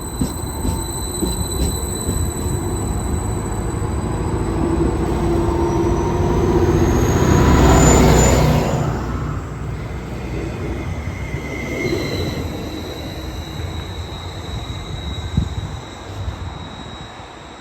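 A train running past on the rails, its rumble building to loudest about eight seconds in and then fading away, with high-pitched wheel squeal.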